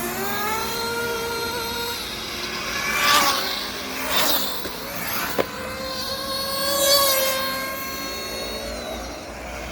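Several RC racing cars' motors running, their pitch rising and falling as the cars speed up and pass close by, loudest about three, four and seven seconds in. A single sharp knock about five and a half seconds in.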